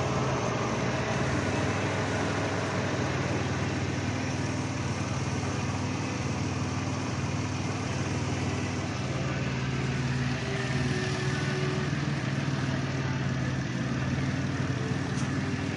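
Caravan minivan engine idling steadily with the cylinder #1 ignition wire open, running on a misfire (code P0301).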